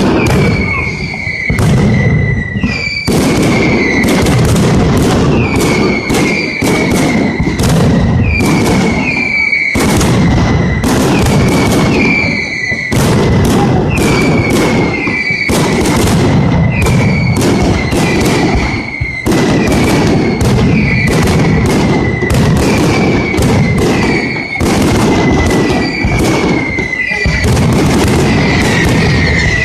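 Mascletà firecracker barrage: a dense, continuous volley of sharp bangs and booms. A short falling whistle cuts through about once a second.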